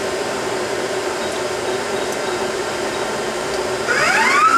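Okuma Cadet LNC-8C CNC lathe running with a steady machine hum. About four seconds in, a motor whine rises quickly in pitch and levels off into a high steady tone, as the spindle speeds up.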